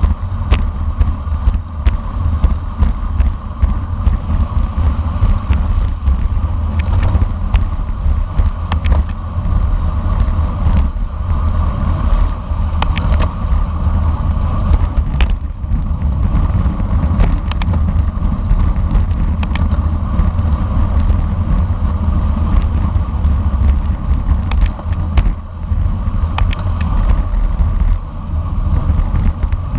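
Racing bicycle at speed: steady wind and road rumble on the microphone, with scattered clicks and rattles from the bike.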